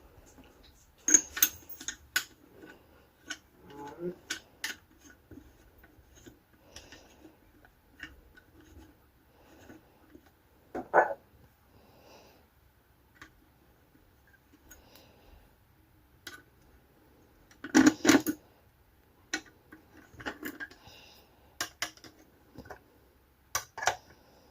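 Handling noise from a vintage gumball machine being put back together: scattered clicks, clinks and rubbing of its parts, with a few louder clatters.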